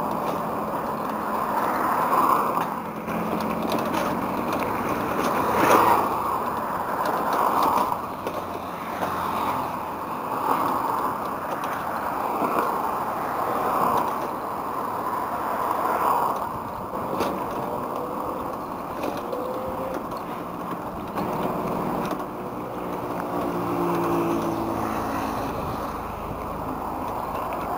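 Road traffic heard from a moving bicycle: steady road and wind noise, with cars and motorcycles going by and faint engine tones rising and falling as they pass. A sharp knock sounds about six seconds in.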